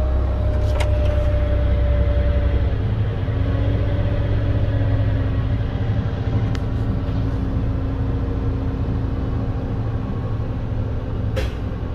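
Truck diesel engine running steadily, heard from inside the cab, as the compressor builds air brake pressure; its note shifts slightly about three seconds in. Near the end a short, sharp hiss of air, the air dryer purging as the governor cuts out with the system fully charged.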